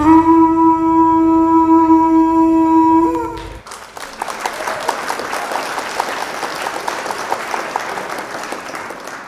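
A single long horn blast, one steady note held for about three and a half seconds, then a crowd applauding that slowly fades away.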